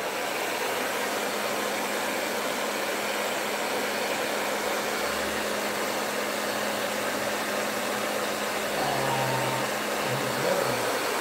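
Handheld hair dryer running steadily, a constant rush of blown air over a low motor hum, drying wet acrylic paint on a wooden board.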